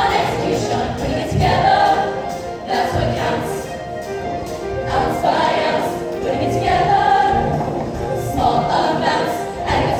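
All-female show choir singing in harmony, with swelling and falling phrases throughout.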